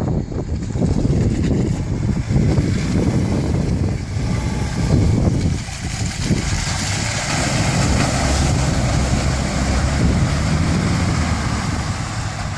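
Off-road 4x4's engine running with a steady low rumble, the hiss of noise above it rising for a few seconds in the middle.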